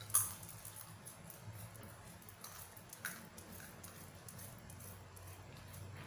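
Two sharp taps from hands coming together, a loud one just after the start and a fainter one about three seconds in, over a low steady hum.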